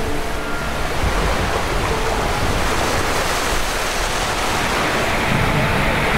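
Steady rushing noise of surf and wind over open water, with low wind buffeting building near the end as a storm sets in.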